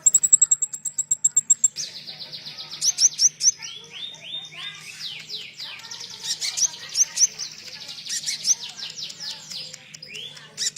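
Small songbird singing a fast, chattering song: an even, rapid trill of high notes for about the first two seconds, then a dense run of quick sweeping chirps to the end.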